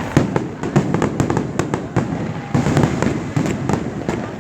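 Fireworks display going off: a dense, irregular volley of sharp bangs and crackles over a continuous low rumble.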